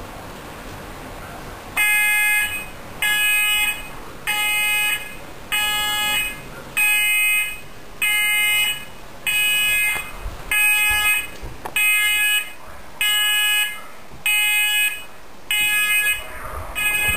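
Fire alarm warning system sounding its alert tone on battery backup power: a pulsed beep, each beep a little under a second long, repeating about every 1.25 seconds. It starts about two seconds in.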